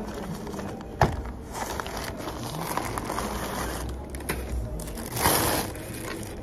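Crinkling and rustling of something being handled, with a sharp click about a second in and a louder burst of rustling a little after five seconds.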